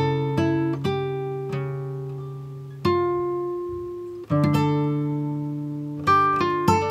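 Background music: a slow plucked-string instrumental, guitar-like, with single notes and chords struck and left ringing out.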